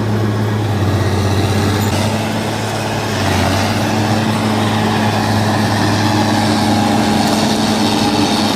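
Heavy vehicle engine running steadily with a low hum, a little louder from about three seconds in.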